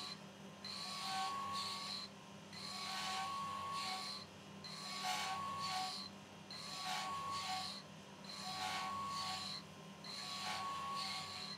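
Abrasive grinding wheel on a vertical surface grinder grinding the face of a steel meat grinder plate to sharpen it, over the steady hum of the machine's motor. The gritty, ringing grind swells and fades about every two seconds.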